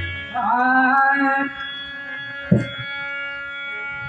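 A singer holds one long sung note over a steady instrumental drone, with a single drum stroke about two and a half seconds in.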